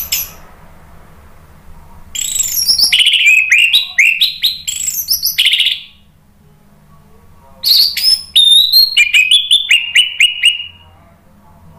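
Orange-headed thrush singing loud phrases of quick, slurred whistled notes, many sliding down from high to lower pitch. There are two phrases of about three seconds each with a pause between, and the tail of another phrase ends just at the start. A faint low hum runs underneath.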